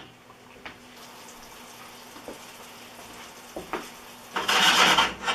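Tomato sauce sizzling faintly in a frying pan on a gas burner, with a few light clicks. Near the end comes a much louder rush of noise lasting under a second.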